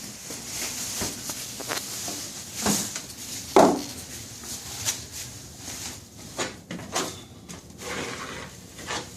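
Scattered knocks, bumps and scraping from someone moving about while doing drywall work, with one loud thump about three and a half seconds in.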